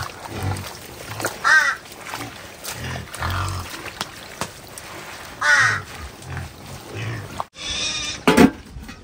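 Animal calls: short calls that bend in pitch every few seconds, with low sounds between them and a louder call falling in pitch near the end.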